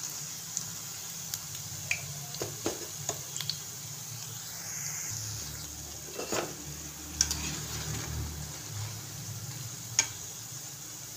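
Spinach pakoras deep-frying in a kadhai of hot oil with a steady sizzle, while a metal slotted skimmer stirs them and clinks against the pan now and then.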